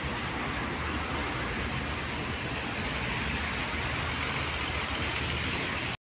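Steady traffic noise of vehicle engines running, with no single event standing out; it cuts off abruptly near the end.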